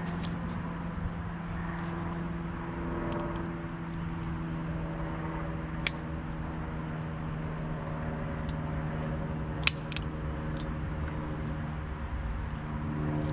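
A steady mechanical hum runs throughout, with a few light clicks and two sharp metallic clicks, about six and ten seconds in, as parts are handled and put away.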